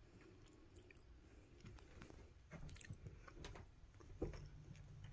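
Near silence: quiet room tone with a faint low hum, and a few soft clicks and light thumps in the second half.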